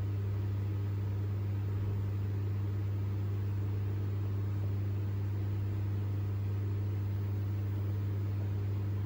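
A steady low hum with a few overtones above it and a faint hiss, unchanging throughout, like a running motor or appliance.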